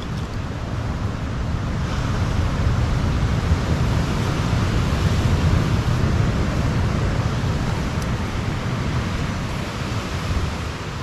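Steady wash of surf and wind, with a low rumble of wind buffeting the microphone.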